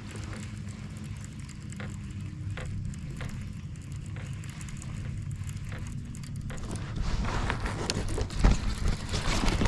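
Steady low hum of the kayak's electric motor, with a few faint clicks. It turns louder and rougher about seven seconds in.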